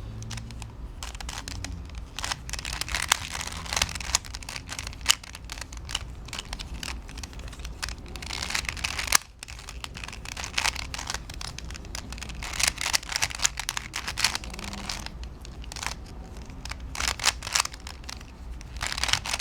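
Plastic Rubik's Cube Twist puzzle being turned quickly by hand: a dense run of clicks and clacks as its layers are turned, with a short break about nine seconds in, over a low steady hum.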